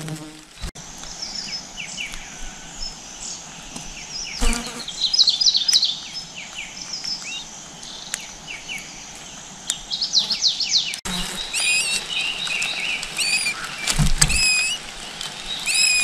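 Songbird nestlings begging with high, thin chirps in quick bursts, then repeated rising chirps over the last few seconds as a parent bird feeds them. A steady high insect-like whine runs behind, and there are a couple of low thumps.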